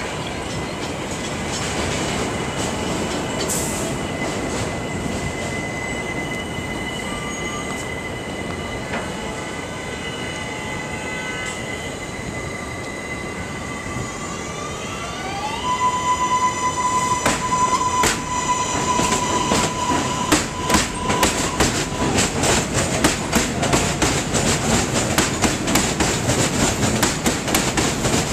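New York City subway train with its electric traction motors whining; the whine rises in pitch and levels off about halfway through as the train picks up speed. The wheels then clatter rapidly and loudly over the rail joints.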